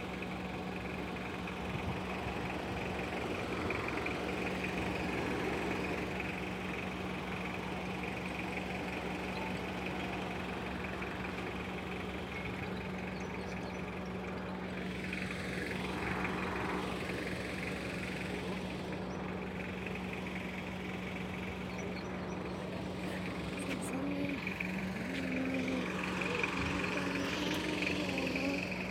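Tubewell pump motor running with a steady, even hum.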